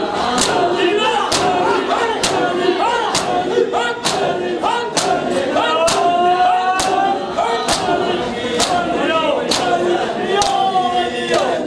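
Matam: a crowd of men chanting a nauha together while slapping their bare chests in unison, a steady beat of sharp slaps about three every two seconds.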